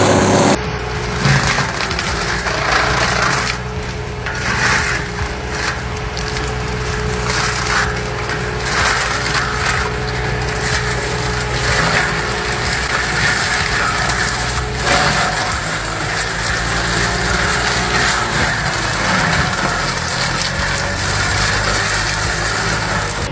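A heavy forestry machine crushing and splintering wood: dense crunching and cracking over the steady hum of its diesel engine under load.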